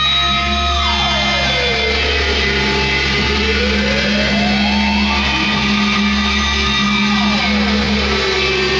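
Live noise music on electronic gear: a loud steady low drone with a cluster of tones above it that glides down about a second in, climbs back up around the middle, and glides down again near the end.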